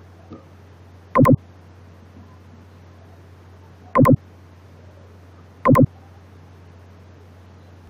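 Three loud, sharp mouse clicks, about a second, four seconds and nearly six seconds in, over a steady low hum.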